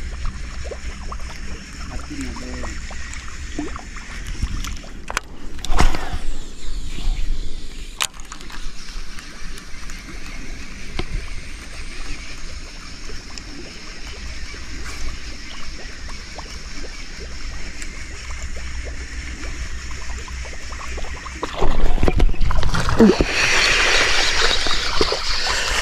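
Water splashing and sloshing, with a few sharp clicks early on and a much louder stretch of splashing and rushing water near the end.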